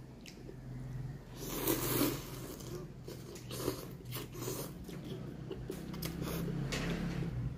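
A person eating noodles close to the microphone: several noisy slurps and chewing sounds, the loudest about a second and a half in.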